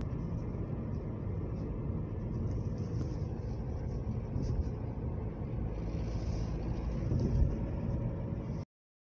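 Car interior on the move: steady low engine and road rumble heard from inside the cabin, cutting off suddenly near the end.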